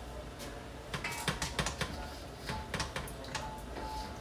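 Quick, irregular light clicks and taps, thickest about one to two seconds in, over a low background hum.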